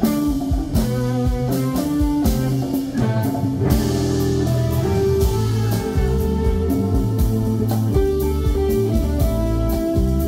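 Live band music: an electric guitar playing a lead line over a drum kit, with a few notes bent downward about halfway through.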